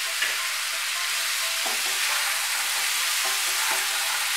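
Chunks of pumpkin, potato and pointed gourd with chickpeas sizzling in hot oil in a nonstick kadai while a spatula stirs and turns them. There is a sharp tap of the spatula on the pan just after the start.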